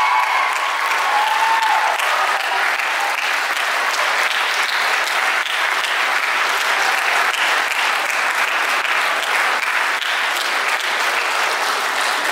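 Audience and band applauding steadily, a dense patter of many hands clapping, with a short voice or whoop heard about a second in.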